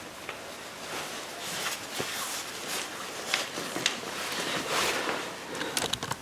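Handling noise: scattered light clicks and knocks with brief rustling.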